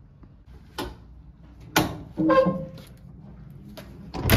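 A few sharp clicks and knocks, with a brief squeak in the middle, then a loud clunk near the end as a hotel room door's lever handle and latch are worked and the door opens.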